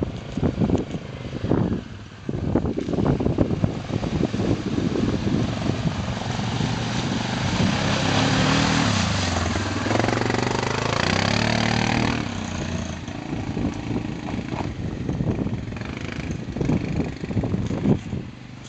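Suzuki KingQuad 700 ATV's single-cylinder four-stroke engine revving through mud and water, its pitch climbing and falling. It is loudest in the middle stretch, where a dense rushing noise rides over the engine.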